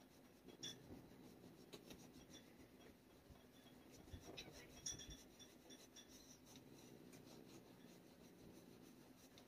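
Near silence: faint rustling and scraping of a leather glove rubbing against a cat's fur, with a few soft ticks, over a low steady room hum.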